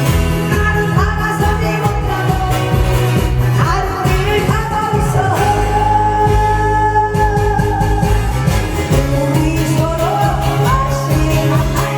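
A song played loud over a sound system: a voice singing over backing music with a steady bass line.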